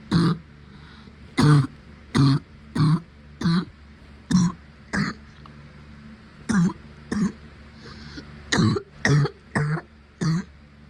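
A woman coughing from a covid infection, with about a dozen short harsh coughs in bouts of two or three and brief pauses between. The uploader has a tight chest along with the cough.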